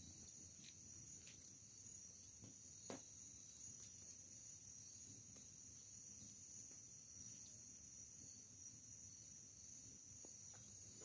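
Faint, steady high-pitched chirring of crickets, with a few soft clicks and pops scattered through it.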